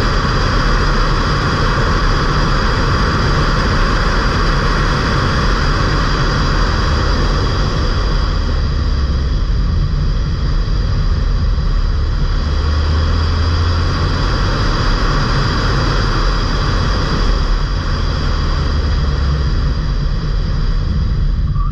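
Steady driving noise from a stage-1-tuned Ford Fiesta mk8 1.5 TDCi diesel on the move: engine, tyres and wind rushing together without a break. A deeper engine rumble swells for a few seconds at a time in the middle.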